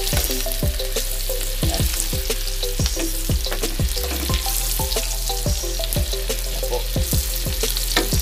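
Chopped onion and garlic sizzling in hot oil in an aluminium wok, with a metal ladle stirring and scraping against the pan about two to three times a second.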